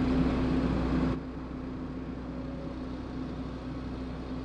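JCB JS220 excavator's diesel engine running steadily with a held hum. About a second in the sound drops suddenly to a quieter, duller level and stays steady.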